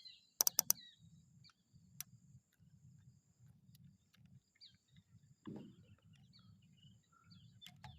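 Faint forest ambience: scattered short bird chirps over a steady high insect drone, with a few sharp clicks about half a second in.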